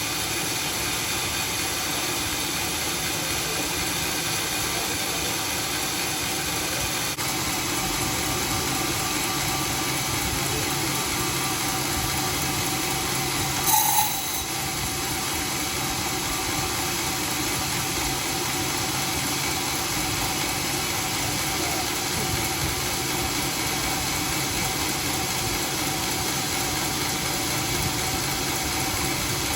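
A homemade sawmill running steadily, with a continuous mechanical noise and faint steady tones. A brief, louder sharp sound stands out about halfway through.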